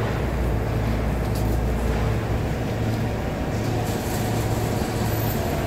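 Steady low machine hum: a deep, unchanging drone with no breaks.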